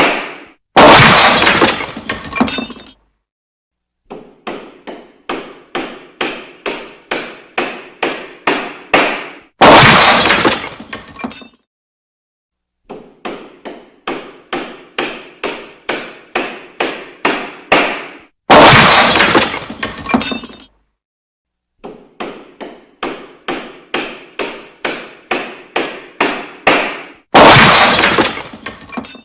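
Renovation sound effect: runs of hammer blows, about two a second, each run ending in a loud smashing crash that lasts about two seconds. The cycle repeats about every nine seconds, with brief silences between.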